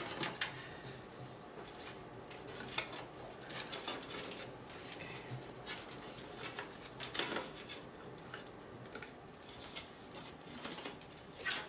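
Cables being handled and routed inside a computer case: scattered clicks, taps and rustles as connectors and cables knock against the case panels.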